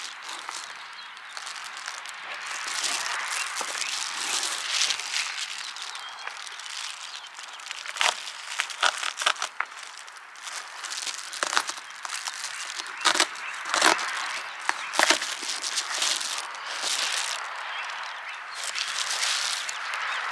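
Reflective foil bubble insulation being handled, folded and rolled, crinkling steadily with sharp crackles scattered through, the loudest in the second half.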